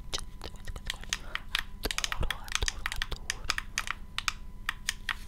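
Long fingernails tapping and clicking rapidly and irregularly on a small black handheld object, several taps a second, over a faint steady hum.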